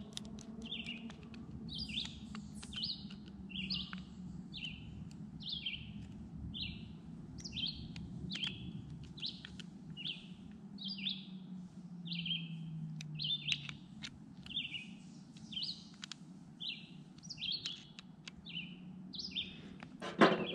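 A bird chirping over and over, short high chirps about one or two a second, over a faint low hum and light clicks of small parts being handled. Near the end comes a sharp clatter, the loudest sound, as a tool is set down on the table.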